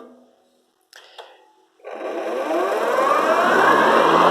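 Electric ride-on mower's blade motors starting up when the blades are engaged. They spin up with a rising whine about two seconds in, then level off into a steady loud whir.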